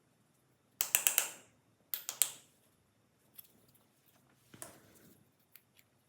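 Sharp clicks and rattles of small hard parts being handled: two loud clusters about one and two seconds in, then fainter scattered clicks.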